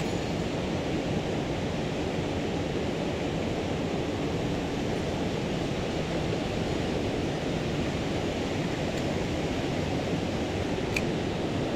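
Mountain stream rushing: a steady, even sound of flowing water.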